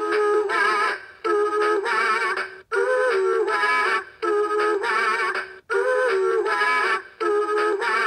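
Gemmy animated singing cardinal birdhouse toy playing its recorded song through its small built-in speaker, in six short phrases of about a second and a half each with brief breaks between them.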